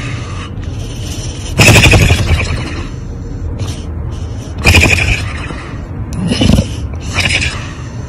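Pit bull snoring as it sleeps on its back: four snores a second or two apart, the first two the loudest and longest.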